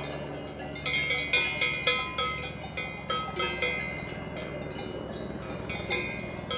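Cowbells clanging irregularly, several strikes a second, each ringing on briefly, over a faint steady low hum.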